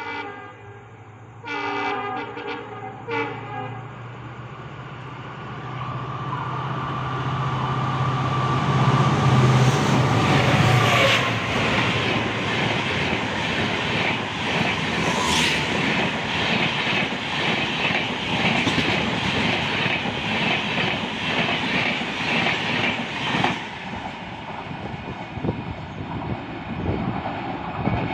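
Hubli–Bangalore Jan Shatabdi Express train: a few short horn blasts near the start, then the train's noise builds to a peak with a low hum, and wheels clack rhythmically over the rail joints as the coaches go by, dropping away suddenly about 23 seconds in.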